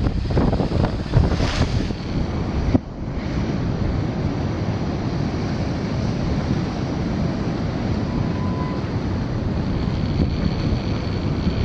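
Tropical-storm-force wind buffeting the microphone over the rush of surf breaking on the shore. It is gusty at first, breaks off for a moment about three seconds in, then settles into a steadier roar of wind and water.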